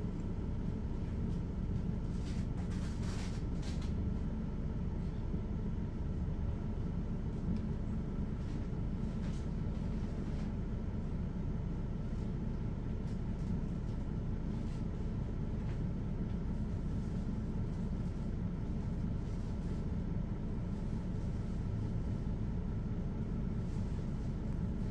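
Mercedes-Benz Citaro articulated bus idling at a stop: a steady low diesel engine rumble.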